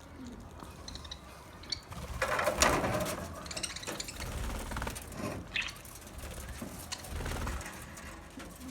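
Pet budgerigars chattering in short, scratchy bursts, loudest about two seconds in.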